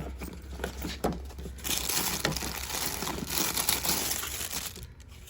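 Crinkling and rustling of things being rummaged through by hand, with a few light clicks and knocks in the first second or so, then denser crinkling for about three seconds that dies down near the end.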